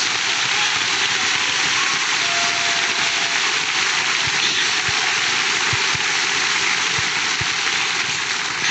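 Large congregation applauding, a dense, steady clatter of many hands clapping.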